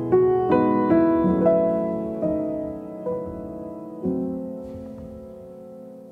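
Background piano music: slow notes and chords struck and left to ring, thinning out and fading toward the end.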